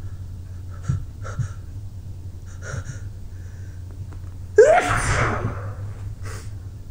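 One loud human sneeze about four and a half seconds in: a voiced intake rising in pitch that breaks into the burst, lasting about a second. A few short breath sounds come before it, over a steady low hum.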